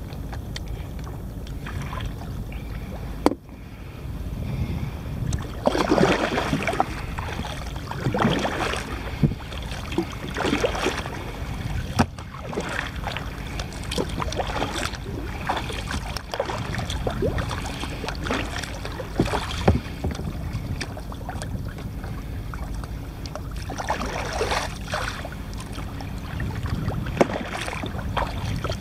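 Kayak paddle strokes splashing in the sea, repeating every couple of seconds, over a steady rumble of wind on the microphone, with a few sharp knocks.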